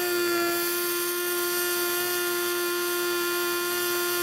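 Pulsed MIG welding arc on aluminum from an HTP Pro Pulse 220 MTS welder, giving a steady high-pitched buzz whose pitch is set by the pulse frequency.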